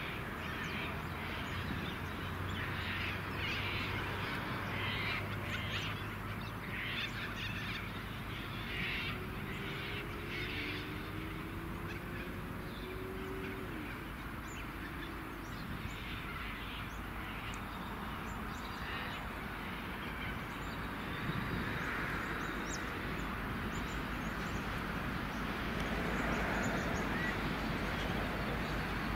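V/Line A-class diesel locomotive A66 hauling passenger carriages towards the listener: a low steady engine hum, with wheel and rail noise growing a little louder in the second half. Crow-like bird calls repeat over the first ten seconds or so.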